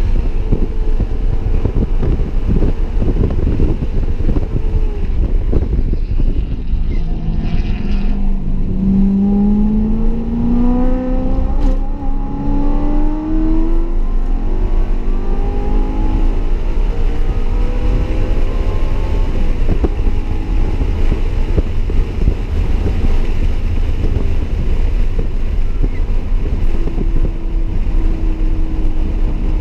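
BMW E92 M3's 4.0-litre V8 with an X-pipe exhaust, heard from inside the cabin on track, pulling hard with its pitch rising under acceleration about a third of the way in. A heavy low road and wind rumble runs under it.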